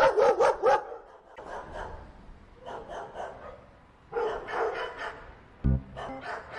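Dog barking: a loud quick run of barks at the start, then fainter bouts of barking. A short low thump comes near the end.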